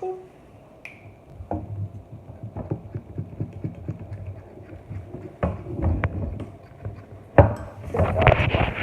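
A spoon stirring glue and food colouring in a bowl for slime, with irregular knocks and taps against the bowl. The tapping and scraping turn faster and busier near the end.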